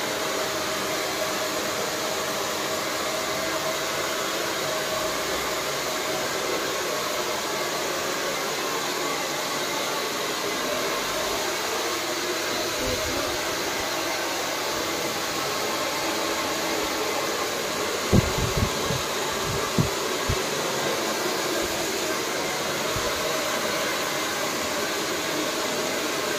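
Handheld hair dryer blowing steadily as a stylist dries freshly cut hair. A few brief dull thumps come about two-thirds of the way through.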